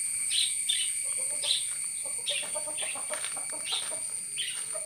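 Domestic fowl calling: short, high clucks and cheeps repeated irregularly, about one every half second.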